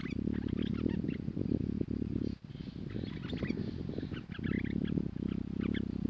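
Stripe-throated bulbul singing in several short bursts of quick, chirping notes, over a louder low rumbling noise.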